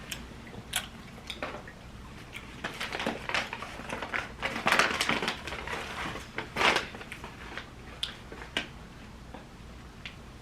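Close-up eating and food-handling sounds from a Chick-fil-A meal: scattered clicks and crunches, with a denser stretch of crunching and rustling in the middle.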